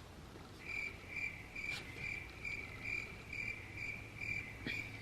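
Cricket chirping steadily, short high chirps about three a second, with two faint clicks from handling the package.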